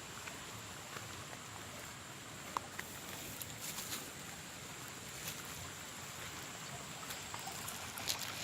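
Outdoor ambience: a steady hiss with a thin, steady high tone, broken by a few faint light clicks and rustles.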